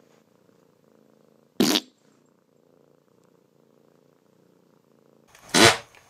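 A cat purring faintly and steadily. Two short, loud bursts of noise break in, one about a second and a half in and a longer one near the end.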